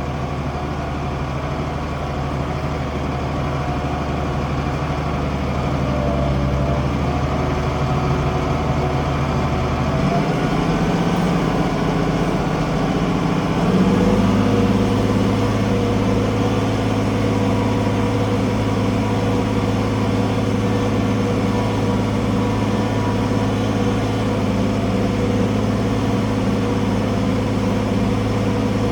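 International Harvester 1566 tractor's six-cylinder diesel engine running steadily. Its speed steps up about ten seconds in, and again a few seconds later, then holds at the higher pitch.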